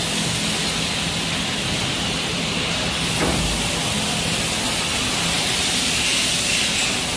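Disposable underpad making machine running: a steady mechanical hiss with a low hum, and a faint knock about three seconds in.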